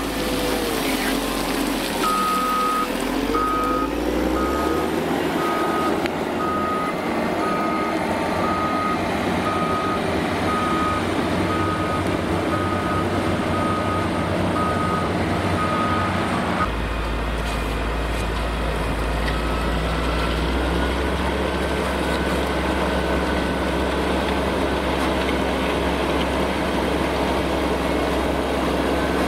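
Cat 160M motor grader's diesel engine running as it works gravel, with a backup alarm beeping steadily at one pitch, about one and a half beeps a second, from a couple of seconds in until about halfway. After the beeping stops, the engine's low rumble is heavier.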